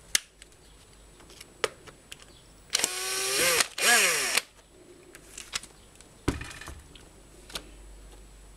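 Cordless drill-driver backing a screw out of a string trimmer's motor cover, run twice in quick succession about three and four seconds in, its whine rising and falling in pitch with the trigger. Small clicks of handling and a thump follow a couple of seconds later.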